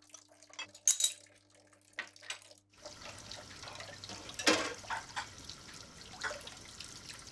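Dishes and cutlery clink a few times, then a kitchen tap starts running about three seconds in, splashing into a sink.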